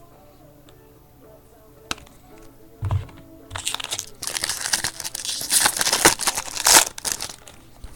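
Foil trading-card pack wrapper torn open and crinkled, a crackly rustle lasting about four seconds in the second half, after a single knock.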